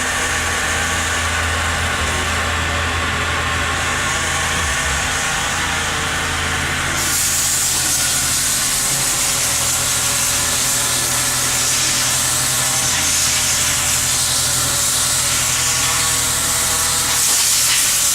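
Steady hissing noise over a low, even machine hum, turning brighter and higher about seven seconds in.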